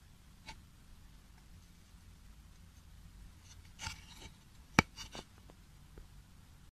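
Handling noise: light rubbing and a few small clicks and taps as fingers touch the shot-through board, with one sharp click about two-thirds of the way through that is the loudest sound.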